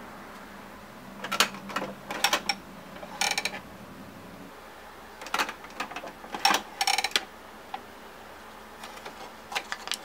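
Plastic clicks and clacks from a Keurig single-cup coffee brewer as its lid handle is lifted open and a K-cup pod is set into the pod holder. They come in several short clusters. A faint low hum stops about halfway through.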